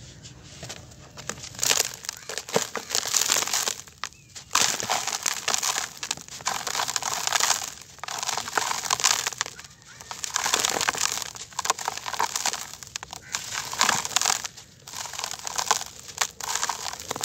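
Dry clumps of sand mixed with fine gravel crushed and crumbled by hand, a gritty crunching that comes in repeated bouts of a second or two with short pauses between, as loose grit pours down through the fingers.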